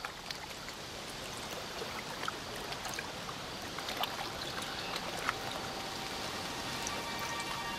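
Steady rushing, trickling noise like running water, with scattered small clicks, slowly growing louder. A few held musical tones come in near the end.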